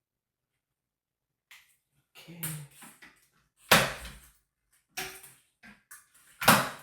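A handful of sharp knocks and clatters of hard objects being handled, the loudest about four seconds in and again near the end, with a little room echo.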